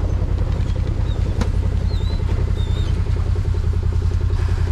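An engine idling steadily, with a fast, even low pulsing that does not change.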